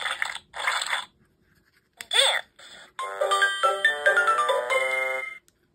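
Peppa Pig sound-button book's little speaker playing short noisy pig-snort effects, then a quick sliding squeal about two seconds in. From about three seconds a short tinkling tune of stepped notes plays.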